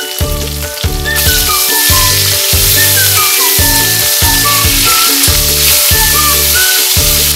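Chicken pieces sizzling as they brown in hot oil in an enamelled cast-iron pot. The sizzle swells about a second in and then holds steady, over background music.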